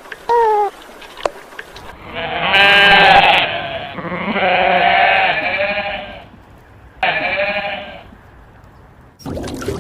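Farm animal bleating: three long bleats with a wavering pitch, the first starting about two seconds in and the loudest. They follow one short, high, arching call. Near the end a new, noisy sound like running water begins.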